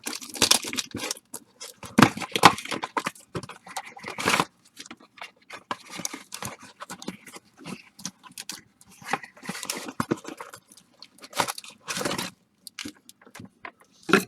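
A blaster box of baseball card packs being torn open and its plastic-wrapped packs crinkling and scraping as they are pulled out and handled: irregular bursts of tearing and crinkling with small knocks.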